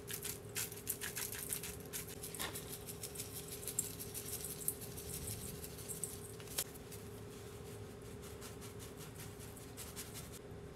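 Seasoning shakers being shaken over raw chicken wings in a stainless steel bowl: rapid small ticks of the shakers and of seasoning pattering down, thick in the first two-thirds and sparse after. A faint steady hum runs underneath.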